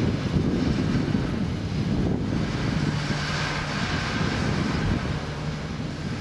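Wind rushing over the microphone of a camera moving through the air, a loud, rough rumble. A faint steady hum joins about halfway through.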